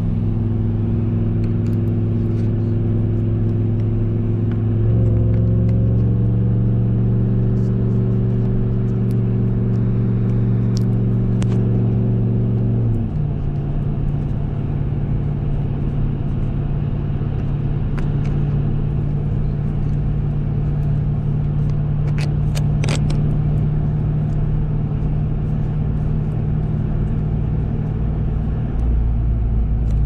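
2021 RAM 1500 TRX's supercharged 6.2-litre Hemi V8 pulling steadily while driving. It steps up in pitch and loudness about five seconds in, then settles to a lower, steady note about thirteen seconds in.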